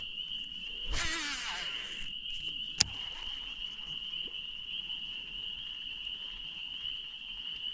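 Steady high-pitched chorus of night insects. A brief whirring sound comes about a second in, and a single sharp click just before three seconds.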